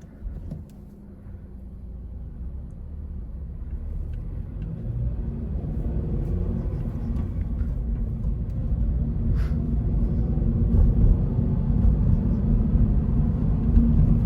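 Toyota GR86's 2.4-litre flat-four engine and road noise heard from inside the cabin on the move: a low rumble that grows steadily louder throughout.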